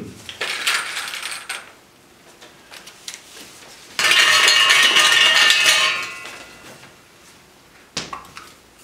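Draw lots being stirred in a silver trophy cup: a loud clatter lasting about two seconds, starting about four seconds in, with the metal ringing on as it fades. Softer handling sounds come before it, and a single sharp click near the end.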